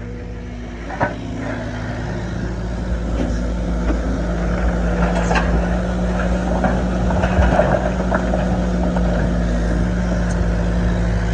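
An engine running steadily with a low hum, with a few sharp knocks over it.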